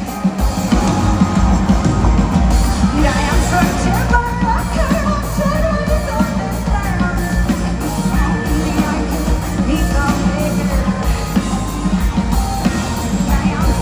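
Live rock band playing, with electric guitars, keyboards and drums, and a woman singing lead over them, heard from the audience.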